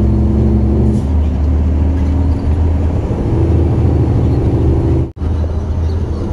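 Cargo truck's engine running while driving, heard from inside the cab as a loud, steady low drone whose pitch shifts about a second in. The sound cuts out for an instant just after five seconds.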